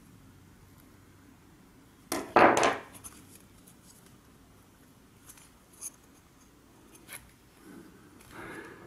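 Bare fibreglass circuit boards handled in the hands: a loud brief scraping rub about two seconds in, then a few light clicks and taps.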